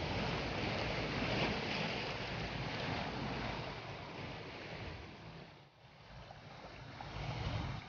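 Wind on the microphone mixed with the wash of sea surf against rocks, a steady rushing noise that eases to a brief lull past the middle and then picks up again.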